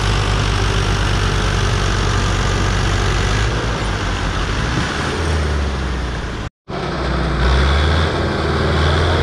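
Diesel tractor engines running hard under heavy load, pulling a stuck, loaded trolley. The sound cuts out for a moment about two-thirds of the way through, then a tractor engine carries on under load.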